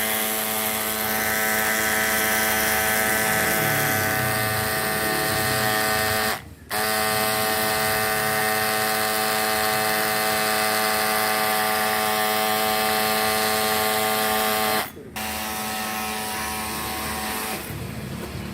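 Cordless washer's 12–24 V mini diaphragm water pump running steadily with a hum and a hiss of spray. It stops for a split second twice and shuts off near the end.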